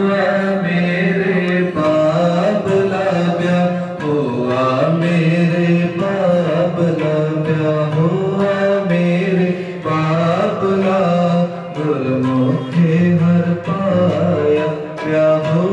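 Sikh kirtan: harmonium playing a hymn melody in held, stepping notes over tabla, with singing voices joining in at times.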